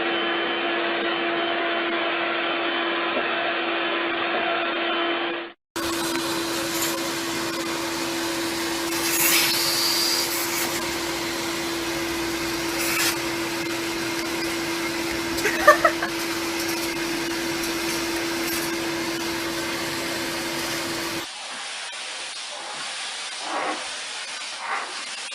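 An appliance motor running steadily at one pitch, with a rushing hiss. It cuts out briefly about a fifth of the way in, then stops near the end, leaving quieter room noise with a few faint sounds.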